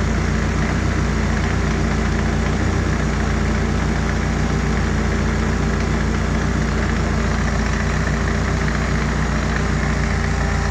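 Turbocharged Honda K20 four-cylinder engine idling steadily while it warms up to heat-cycle and bleed air from the cooling system.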